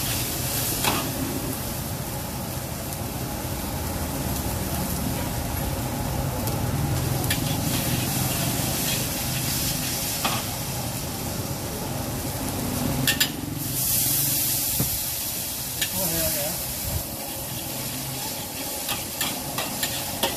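Yellow noodles stir-frying in a wok over a gas flame: continuous sizzling, with the metal spatula scraping and clinking against the wok. A brief louder hiss comes about 13 seconds in, and quick spatula taps on the wok near the end.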